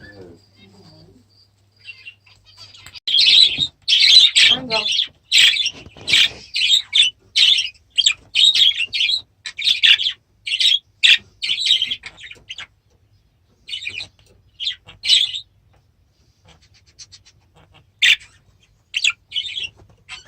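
Small pet parrots calling in a fast run of short, shrill chirps and squawks for about ten seconds, then a few scattered calls near the end.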